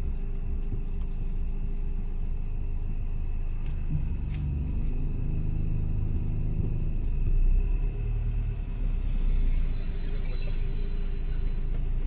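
Car moving slowly, a steady low rumble heard from inside the cabin. A thin, high steady tone comes in about two seconds before the end.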